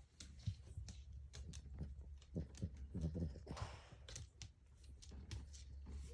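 Sleeping, dreaming dogs: irregular soft clicks and scrapes, a few short, low, muffled vocal sounds, and a breathy exhale about three and a half seconds in.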